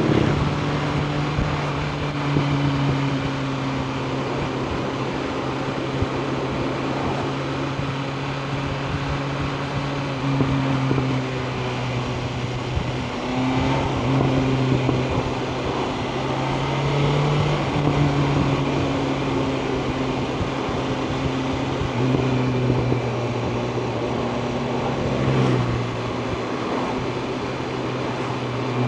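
BMW M1000R Competition's inline-four engine running at a steady cruising pace while riding. Its pitch holds mostly level, with small steps down and up every few seconds, over a constant rushing noise.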